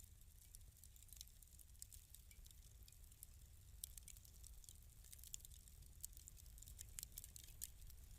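Wood fire in a fireplace crackling softly, with irregular small pops and snaps over a low steady rumble.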